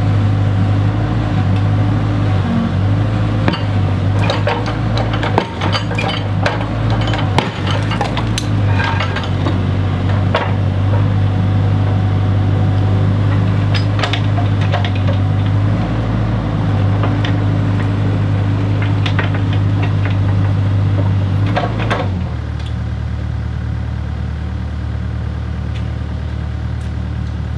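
Bobcat 331 mini excavator's diesel engine running at working speed while a brick wall is pushed over, with bricks clinking and knocking as they break and fall. About three-quarters of the way through, the engine drops to a lower, quieter idle.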